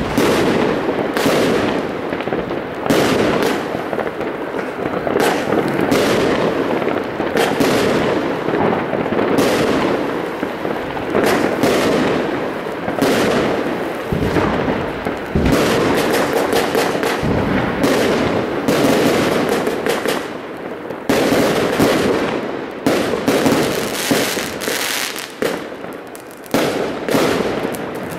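Fireworks going off without a break: many bangs and crackles overlapping, with sharp louder reports every second or so.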